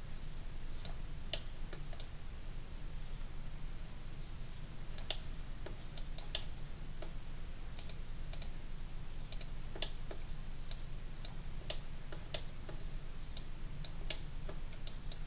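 Irregular clicks of a computer mouse and keyboard keys, about two a second, over a steady low hum.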